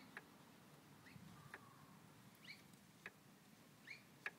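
Near silence with a small bird chirping faintly, a short rising chirp about every second and a half. Four light, sharp clicks fall among the chirps, the loudest near the end: the gear-shift linkage of a Triumph 675 being worked by hand.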